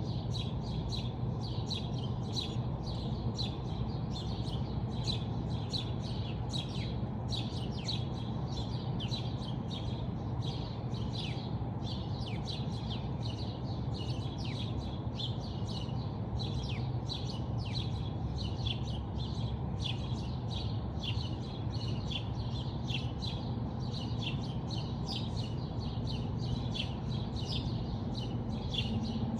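Many small birds chirping continuously, a dense run of short, quick, downward-sweeping chirps, over a steady low background rumble.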